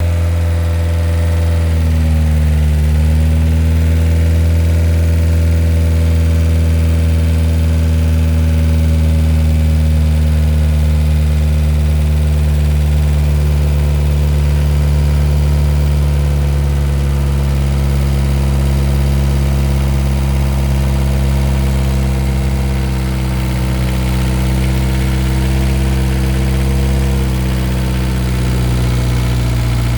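Diesel engine running at a steady speed, its pitch dipping briefly about two seconds in, while air is being bled from its fuel system.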